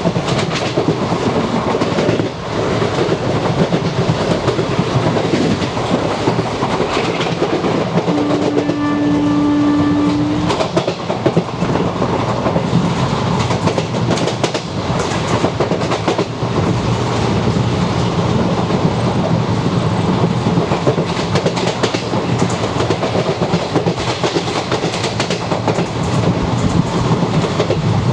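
Vintage ICF passenger coach running on the rails, heard from inside: steady running noise with repeated clickety-clack knocks from the wheels over rail joints. About eight seconds in, the WAP4 electric locomotive's horn sounds one steady blast of about two and a half seconds.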